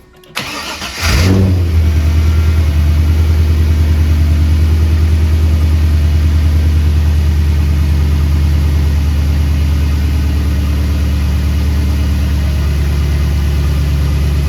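Chevrolet Camaro's LS V8 being started: the starter cranks briefly, the engine catches about a second in, then idles steadily.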